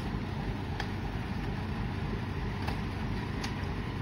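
John Deere tractor engine idling steadily, with a few brief clicks over it.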